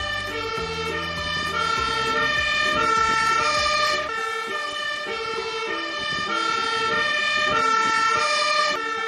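Fire engine's two-tone siren, alternating steadily between a high and a low note as the MAN aerial-ladder fire truck drives past. The truck's engine rumbles under it for the first four seconds or so.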